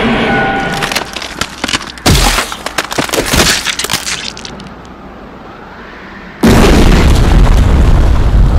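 Dubbed crash and explosion sound effects. A sharp crash with crackling, breaking debris about two seconds in fades away, then a sudden loud, steady rumbling crash starts near the end.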